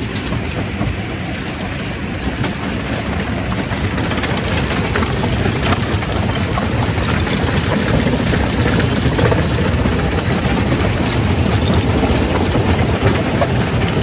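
Quarry primary rock crusher running, stone grinding and cracking in it: a dense, loud din with a low rumble and many small sharp cracks, growing slightly louder through the stretch.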